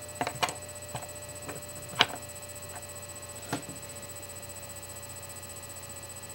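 A small wooden fingerboard deck being handled on a tabletop: about six light clicks and taps in the first few seconds, the sharpest about two seconds in, then only a steady low hum.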